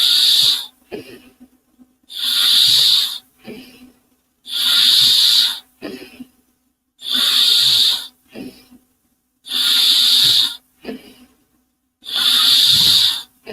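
A person imitating a steam engine with their mouth: six loud, hissing exhaled puffs about every two and a half seconds, each lasting about a second, with a shorter, quieter intake of breath between them.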